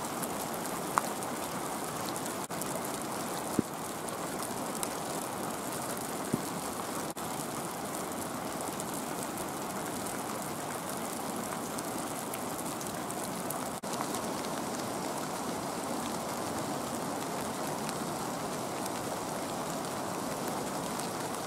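Light rain falling: a steady hiss with a few faint ticks of drops here and there.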